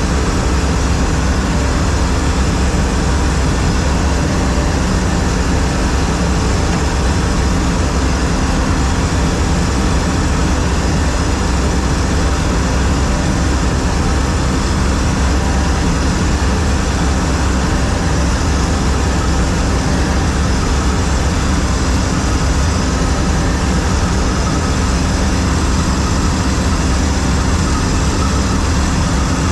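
A John Deere 4400 combine running steadily, with a constant low engine hum under a dense, even machinery noise and no changes in pitch or level.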